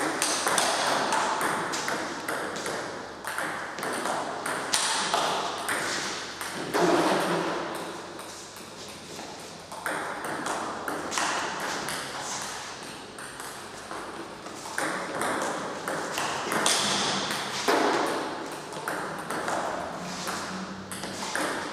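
Table tennis ball being hit back and forth in a practice rally: quick clicks of the bats striking the ball and the ball bouncing on the table, with a few short pauses. The strokes are backhand topspins played against backspin.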